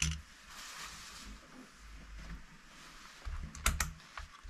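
Workbench handling noises: a tool set down with a sharp knock, rustling as a fleece sleeve moves across the bench, then two quick sharp clicks with dull knocks about three and a half seconds in.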